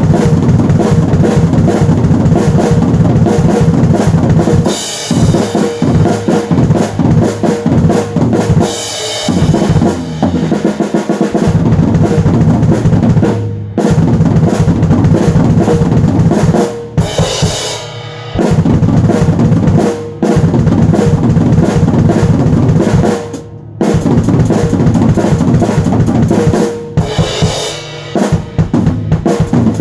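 A drum kit played hard in fast, dense strokes, with a few short breaks and several bright washes of high sound mixed in.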